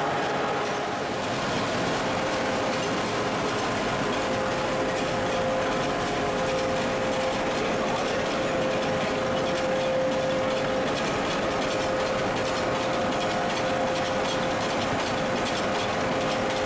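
Old belt-driven cardboard-mill machinery running steadily: flat drive belts over pulleys and gear-driven rollers turning, with a steady whine and fast, faint clicking.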